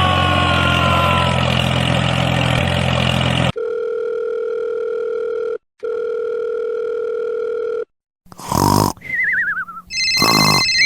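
An engine running for about three and a half seconds, cut off abruptly by a steady telephone dial tone that breaks once briefly. After a short silence come warbling electronic tones and the start of a phone ringing.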